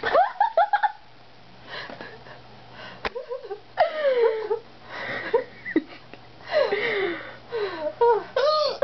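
Breathless, wheezing laughter mixed with squeaky hiccups: a string of short, high-pitched gasping cries that slide up and down in pitch, coming every second or two.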